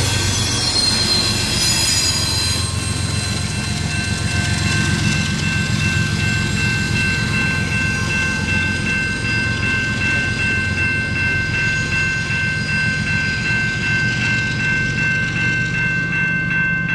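Double-stack intermodal freight train rolling past in a steady rumble with rapid wheel clicks, its wheels squealing for the first few seconds. From about four seconds in, a level-crossing warning bell rings steadily.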